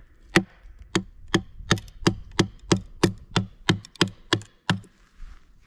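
A wooden baton striking the spine of a TOPS Brothers of Bushcraft fixed-blade knife, about three sharp knocks a second, driving the blade down into a log along a half-depth saw cut to split out a notch. The knocks stop about a second before the end.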